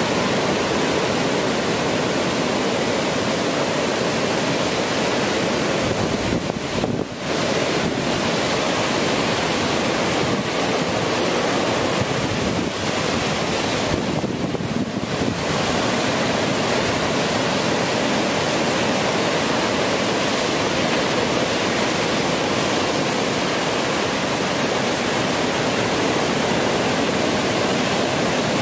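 Ocean surf breaking and washing onto the beach as a steady rush of noise, with wind on the microphone; the sound dips briefly twice.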